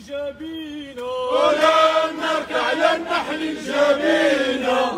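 Protesters chanting a slogan in Arabic: one leading voice, then about a second in the whole crowd joins in unison, louder.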